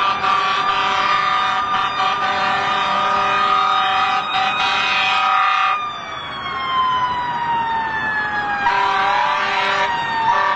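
Emergency vehicle siren. A steady, many-toned blare lasts about six seconds, then a tone winds down in pitch, and the steady blare comes back briefly near the end.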